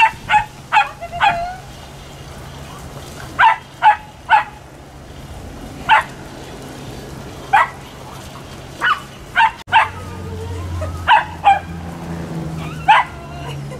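Dog barking during rough play: about fifteen short, sharp yips, often two or three in quick succession.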